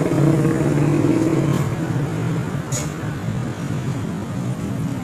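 A motor engine droning steadily, easing off slightly, with a brief sharp click about three seconds in.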